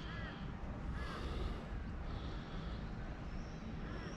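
Birds calling in short, repeated calls over a low steady rumble.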